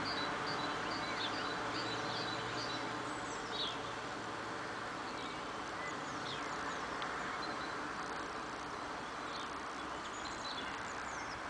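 Birds calling, played back through outdoor loudspeakers in the trees: a quick run of short high pips for the first few seconds, then scattered thin downward-sliding calls, over a steady hiss.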